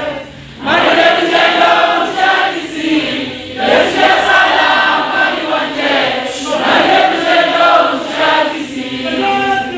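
A choir singing together in held phrases, coming in a little under a second in after a brief pause.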